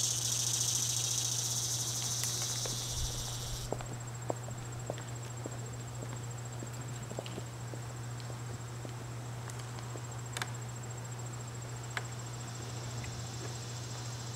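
Insects singing: a loud high buzzing drone that stops suddenly about four seconds in, leaving a steady high cricket trill. A low steady hum runs underneath, with a few faint ticks.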